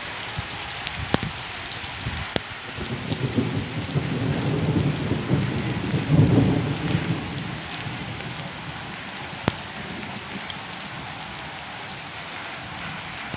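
Steady rain falling on a brick rooftop, with a few sharp drop taps. A deep rumble swells in the middle, loudest about six seconds in, then fades back to the rain.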